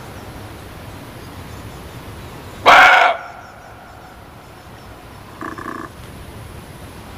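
Muntjac (barking deer) giving one loud, short bark about three seconds in, then a shorter, quieter call two or so seconds later, over a steady background hiss.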